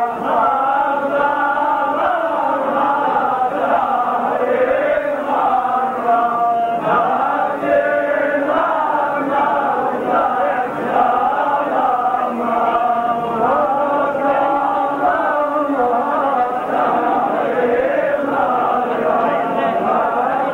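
A group of men's voices chanting together without a break, the melody wavering up and down.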